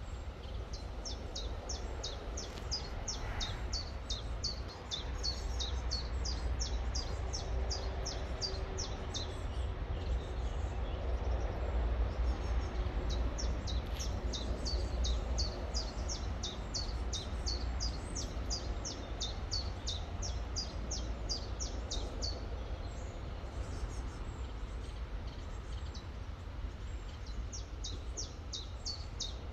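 A songbird repeating quick, high, downward-sliding notes about three times a second in long runs: one run in the first ten seconds, another from about 13 to 22 seconds, and a third starting near the end. Under it is a steady low rumble.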